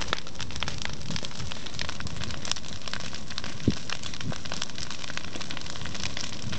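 Dry grass and undergrowth burning with a steady crackle of many small snaps, and one dull thump about halfway through.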